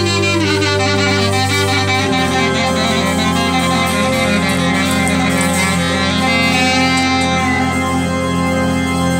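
Live instrumental band music: a clarinet plays the melody over a Roland JUNO-Di keyboard holding low sustained notes, which change about two seconds in.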